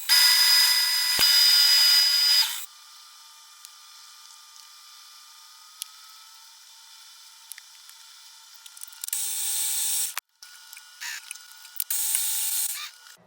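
Metal-cutting machine tool working a BMW M60 camshaft bearing cap: loud cutting noise with a high steady whine for about two and a half seconds at the start, then two shorter bursts near the end. A faint steady machine hum and a few light clicks run between the cuts.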